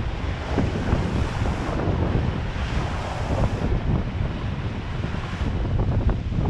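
Wind buffeting the microphone over the steady rush and hiss of water along the hull of a sailboat sailing fast through waves. The hiss grows louder for a couple of seconds about two seconds in.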